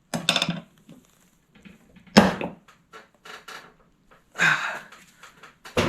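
Clanks and knocks of steel tools working a small snowblower tire on a mini tire changer: a quick rattle, then one sharp loud knock about two seconds in, a few light clicks, and another sharp knock near the end.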